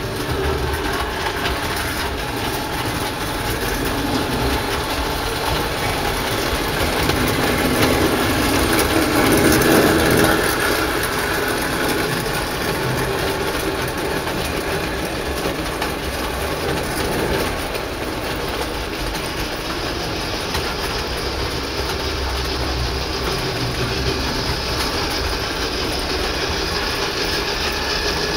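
Gauge 0 tinplate model train running on metal track, a steady rumble and clatter that grows louder to a peak about ten seconds in, then settles.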